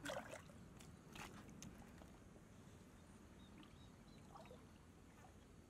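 Faint splashing and sloshing of hands groping in shallow muddy water, with a few short splashes in the first two seconds and softer ones later.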